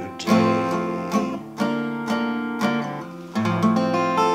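Steel-string acoustic guitar with a capo, strumming the closing chords of a hymn with no singing. About five chords are struck, and the last one, about three and a half seconds in, is left to ring.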